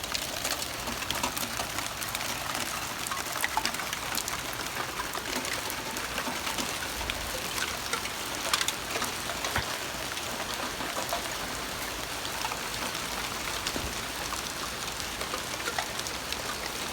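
Heavy rain falling steadily, with the sharp ticks of many drops striking hard surfaces close by.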